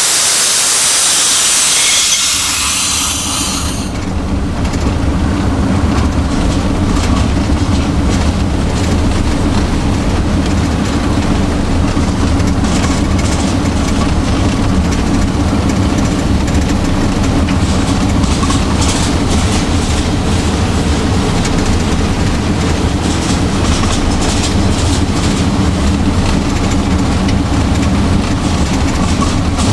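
A loud hiss for the first few seconds, then the TU7 narrow-gauge locomotive's V12 diesel running steadily as heard inside the cab, with the clickety-clack of wheels on rail joints under a loaded freight train.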